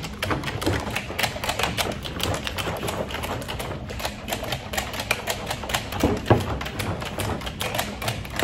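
A gallon metal can of paint being shaken hard by hand, rattling in rapid clicks, with a heavier knock about six seconds in.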